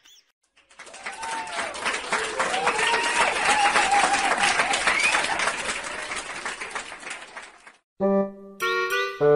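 Applause and cheering: a dense clatter of many hands clapping with voices rising over it, starting about a second in and fading out shortly before the end. A short bright musical jingle of clear notes follows near the end.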